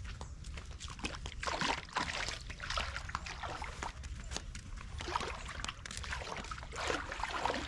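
Water splashing and sloshing around a kayak in irregular bursts, over a low steady rumble.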